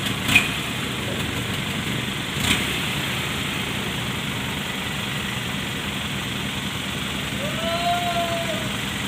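Steady engine noise as vehicles load onto a ferry's car deck, with two short sharp knocks, one near the start and another about two and a half seconds in. A brief drawn-out high tone, rising then falling, comes near the end.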